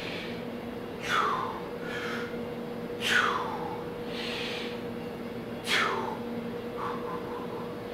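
A man's hard, effortful breaths during band-assisted bar dips: three sharp exhales about two seconds apart, each one falling in pitch, with softer breaths between them. A faint steady hum sits underneath.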